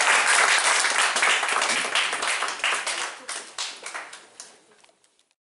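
Audience applauding, a dense patter of many hands that thins out and dies away about four to five seconds in.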